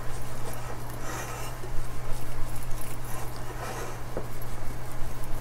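Silicone-coated whisk stirring dry cake mix of flour, sugar and cocoa powder in a glass bowl: soft, repeated scraping and swishing strokes, over a steady low hum.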